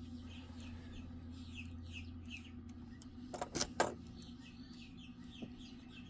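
Lock pick working the pins of an Ingersoll padlock's Medeco core: a few sharp metallic clicks about three and a half seconds in, over a low steady hum. Faint bird chirps repeat throughout.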